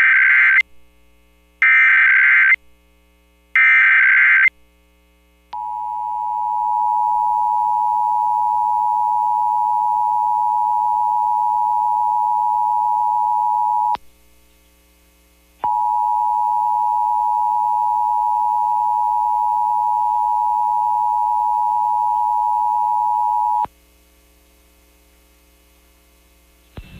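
Emergency Alert System test alert: three short bursts of SAME header data, a warbling digital screech, about two seconds apart, followed by the two-tone EAS attention signal (853 and 960 Hz), which fades in and holds for about eight seconds, breaks off for about a second and a half, then holds again for about eight seconds before cutting off.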